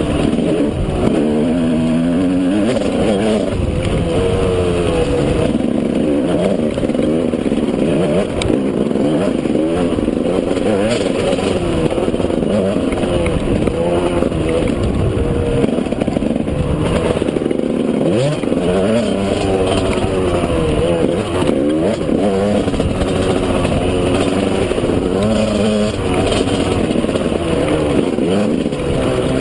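A KTM 200 EXC's single-cylinder two-stroke engine, revving up and down continually under load while riding, heard from the rider's helmet.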